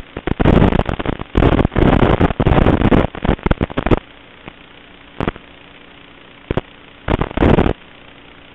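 Loud, distorted crackling bursts of noise on an FPV racing quadcopter's onboard recording, over a faint steady motor hum. A long run of crackle fills the first four seconds, then shorter bursts come and go.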